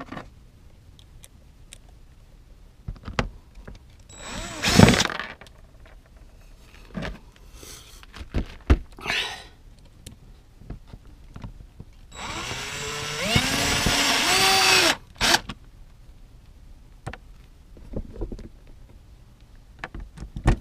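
Cordless drill with a screwdriver bit driving a self-tapping screw into a plastic resin shed floor panel: a short spin about four seconds in, then a run of about three seconds from about twelve seconds in, its pitch dipping as it works before it stops. Light clicks and taps of screws and bit being handled between.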